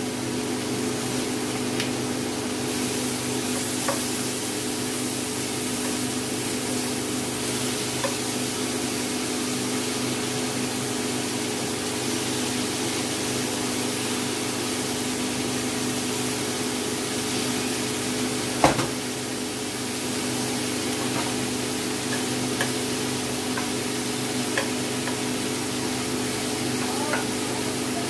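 Marinated chicken pieces sizzling as they fry in a stainless steel roasting pan, with a spatula stirring and scraping against the pan. There are small ticks now and then and one sharp knock about two-thirds of the way through. A steady low hum runs underneath.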